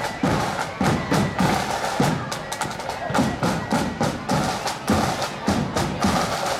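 Marching band drums beating a steady parade rhythm: crisp snare drum strikes over bass drum beats.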